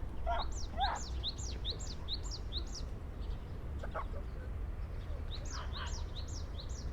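Songbirds singing: a run of quick, high, down-slurred notes, about four a second, starting about half a second in and lasting about two seconds, then repeated near the end. A few lower call notes come from other birds over a steady low rumble.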